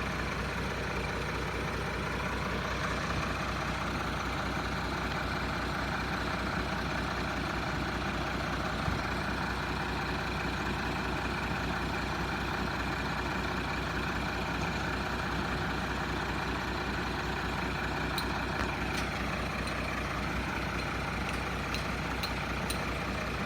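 Heavily loaded truck's engine running steadily under load, a constant low drone, with a few light clicks near the end.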